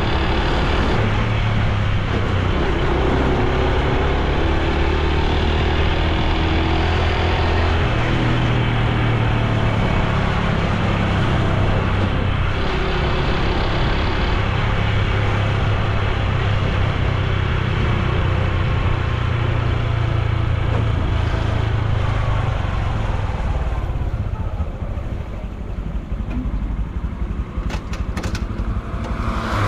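Honda Super Cub C125's single-cylinder four-stroke engine and exhaust running while riding on the road, with wind and road noise. Near the end the engine note drops back and the sound quietens.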